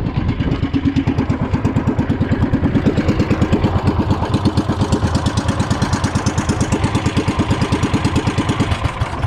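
Small engine of a motorized outrigger boat running with a steady, even putter, then cutting off suddenly near the end. The shutdown comes as the spark plug is pulled.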